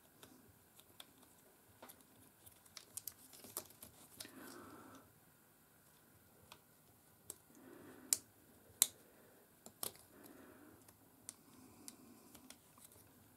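Faint, scattered clicks and taps of small plastic and metal spinning-reel parts being handled and pressed into place, with a few brief soft rustles. Two sharper clicks come a little past the middle.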